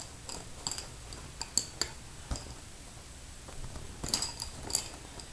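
Wooden pencils clicking against one another as a hand sorts through a loose pile of them: scattered light clicks, with small clusters about a second and a half in and again around four seconds in.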